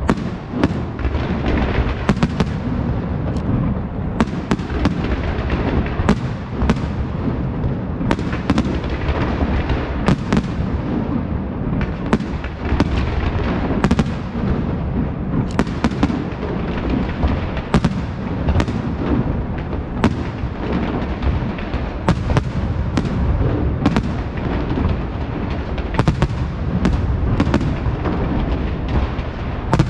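Large aerial fireworks display, a Valencian castillo: a continuous barrage of shells bursting, a dense low rumble of booms with many sharp cracks over it, without a pause.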